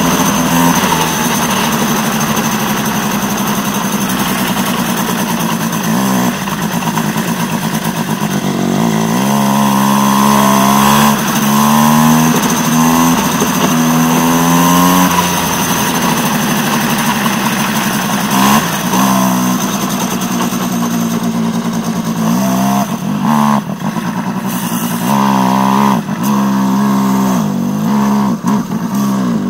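Aixro Wankel rotary kart engine on track at full throttle, its pitch climbing steadily along the straights and dropping sharply each time the driver lifts off for a corner, several times over.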